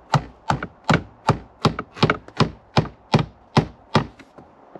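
Small hammer tapping a new metal blend door shaft into the HVAC box: a quick, even run of about eleven light taps, roughly three a second, stopping about four seconds in.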